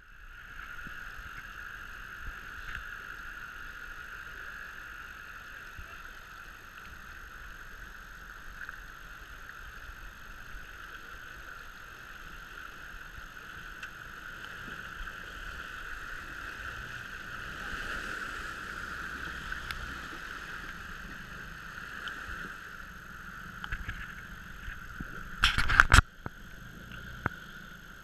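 Creek water rushing steadily over rocks, with a four-wheel-drive ute's engine running low underneath as it wades through the shallow crossing. A short, loud burst of noise cuts in near the end.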